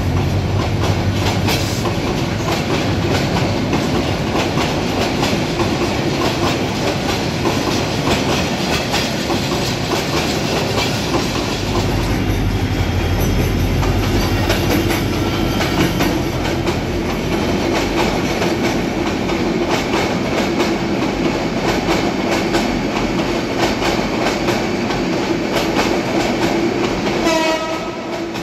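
Passenger trains passing on the rails, the wheels clacking steadily over the rail joints. About twelve seconds in, a heavier, deeper rumble comes in as a diesel locomotive hauling passenger coaches goes by.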